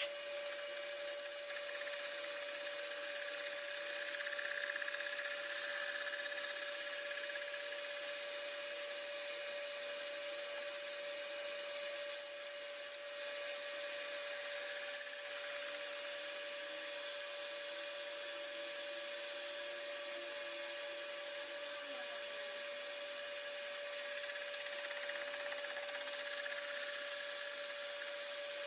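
Manual metalworking machine tool running: a steady whine at one unchanging pitch, with a hiss above it.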